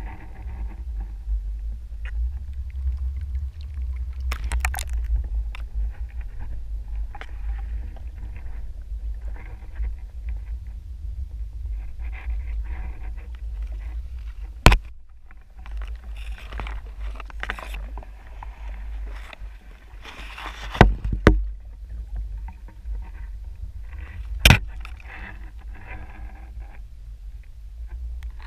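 Underwater sound in a shallow rock pool: a steady low rumble of moving water around the submerged camera, with a few sharp knocks, the loudest about 15, 21 and 24 seconds in.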